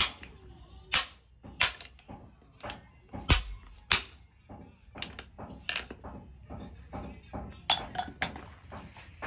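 Hand hammer blows driving a wooden handle into a hot steel socket on a pipe anvil: a series of sharp, irregularly spaced knocks, about one a second, the loudest a little after three seconds in.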